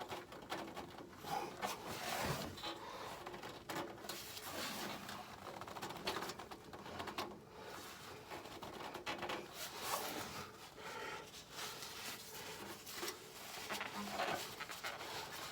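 Hand-working noises as an oil filter is worked loose: irregular rustling, scraping and light clicks and knocks.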